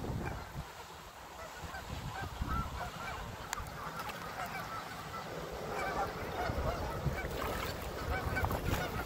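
Canada geese giving many short honks, with more of them in the second half.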